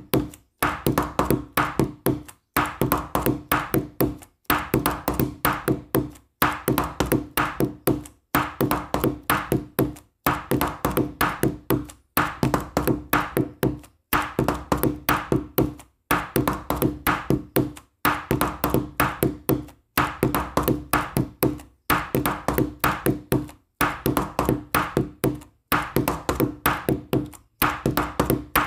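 Light, percussive background music: a short phrase of quick tapping notes over a steady held tone, repeating about every two seconds with a brief gap between phrases.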